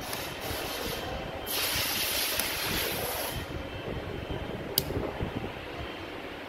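Auto repair shop background noise, a steady rumbling din. A loud hiss comes in about a second and a half in and lasts about two seconds, and a single sharp click comes near the end.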